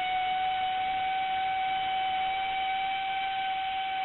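Electric random orbital sander with a 220-grit disc running on the outer lip of a BMW E46 M3 alloy wheel, taking off the top coat. It makes a steady, high-pitched motor whine over a hiss.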